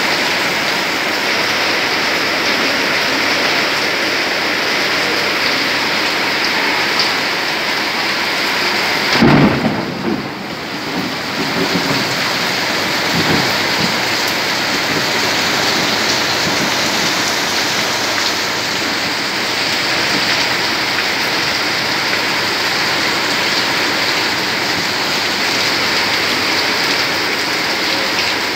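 Heavy rain pouring steadily onto a paved courtyard and running off roof edges, a constant loud hiss. About nine seconds in comes one loud low thump, followed by a few seconds of low rumbling.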